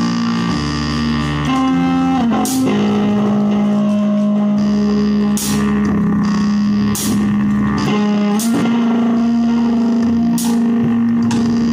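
Instrumental rock music: a distorted electric guitar holds a low note while other notes change above it, with a couple of quick pitch slides. Drum cymbal crashes come in several times.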